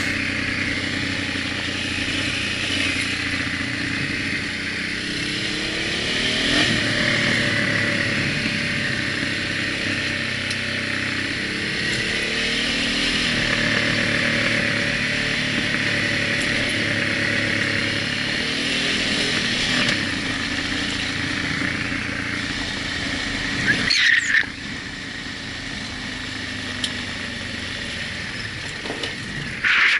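Honda Africa Twin XRV750's V-twin engine running on a gravel descent, its pitch rising and falling with the throttle over a steady rushing noise. A brief squeak about 24 seconds in, after which it goes quieter.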